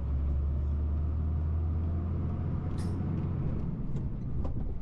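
Heavy truck's engine running under way, a steady low drone heard from inside the cab, with a short hiss about three seconds in.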